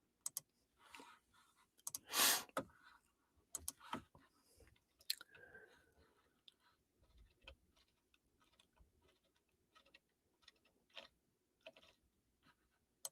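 Scattered soft clicks and small rustles close to a microphone in a quiet small room, with one louder short noise about two seconds in.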